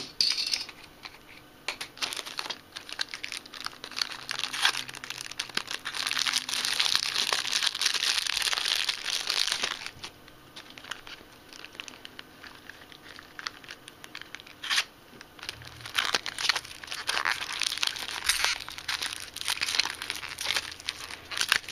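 Clear plastic wrappers on small cardboard toy boxes crinkling and tearing as they are handled and opened, in two busy stretches with a quieter pause in the middle.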